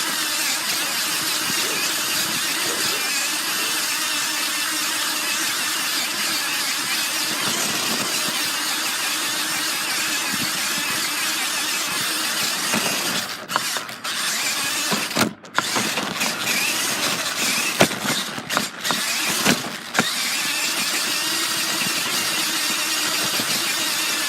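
A radio-controlled car driving, with a steady mechanical whirring of its drivetrain and the rolling of its wheels. In the middle it is broken by several sharp knocks and brief dropouts, then runs steadily again.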